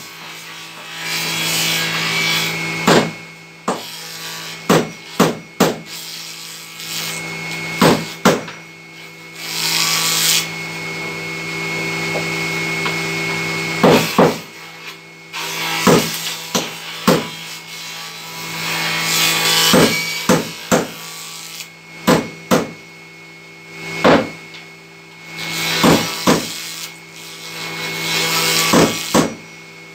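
Table saw running with a steady motor hum, cutting wood in passes of a few seconds, with many sharp wooden knocks between the cuts.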